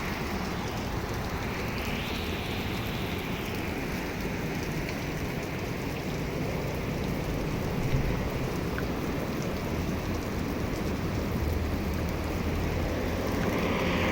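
Steady rain from a severe thunderstorm. The hiss of tyres on a wet road swells and fades about two seconds in and again near the end.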